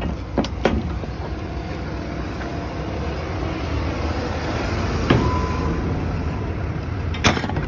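Steady low rumble of idling truck engines, with a few sharp knocks near the start, a brief squeal falling in pitch about five seconds in, and a clank near the end.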